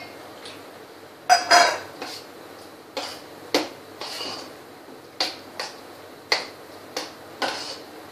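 Stainless steel bowl clinking and knocking as curd rice is stirred and mixed in it, about a dozen separate sharp knocks spaced roughly half a second to a second apart, the loudest a little over a second in.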